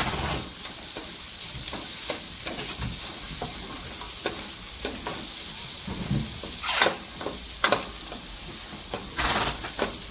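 Chopped onion, garlic and ginger sizzling as they sauté in a stainless steel pot, with a wooden spatula scraping and knocking against the pot as they are stirred. A few louder scrapes come near the end.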